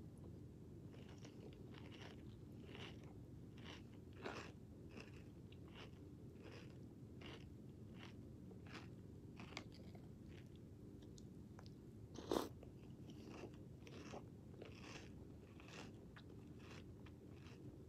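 Close-up chewing of crunchy cinnamon square cereal (Cinnamon Toasters) in milk: short, faint crunches about every half second. There is one louder, sharper click about two-thirds of the way through.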